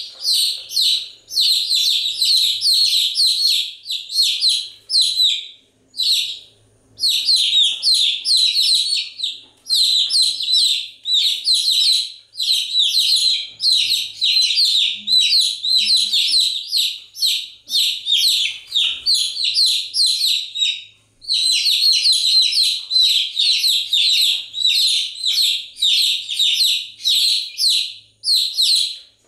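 Baby chicks peeping in rapid, continuous high-pitched chirps, several a second, with a few short pauses.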